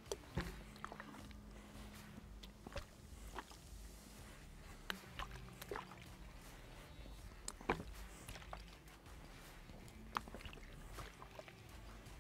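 Faint scattered clicks and light knocks from a plastic water bottle being handled and drunk from, over a low steady hum.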